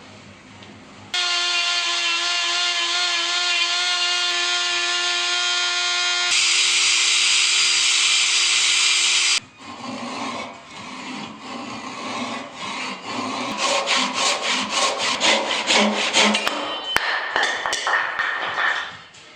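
A power tool working wood: a steady motor whine starts abruptly about a second in and turns rougher and louder about halfway through its run, then cuts off. It is followed by irregular scraping and rubbing on wood, with a quick run of rasping strokes later on.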